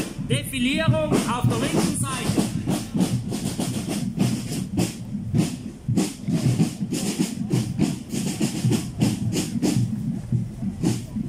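Field drums of a marching corps beating a steady marching rhythm, with people talking close by during the first couple of seconds.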